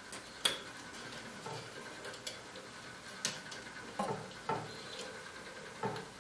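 Small clicks and knocks of wire connectors being pushed and clipped into the sockets of a heat press's replacement motherboard: one sharp click about half a second in, then a few scattered duller knocks.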